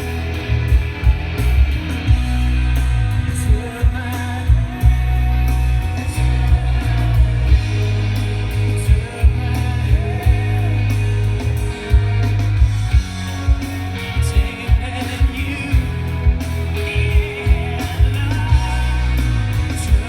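Pop-rock song with singing and guitar played through Edifier R1280DBs bookshelf speakers and an Edifier T5 subwoofer, its low-pass and bass level turned fully up. Heavy bass with a steady kick-drum beat of about two hits a second.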